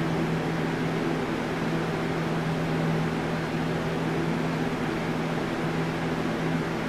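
Steady mechanical hum: a low, unchanging tone under a constant hiss, like a running motor or fan.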